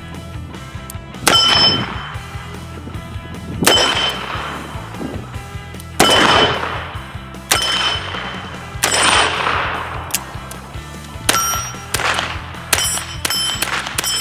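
Revolver shots at steel targets, each crack followed by the ringing clang of the struck steel plate; the shots come more often near the end. Light background music underneath.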